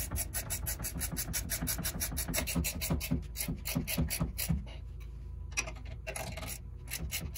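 Ratchet wrench clicking rapidly as it runs the bottom nut up the threaded rod of a homemade coil-spring compressor, compressing a front coil spring. About halfway through the fast clicking stops, leaving a few scattered clicks.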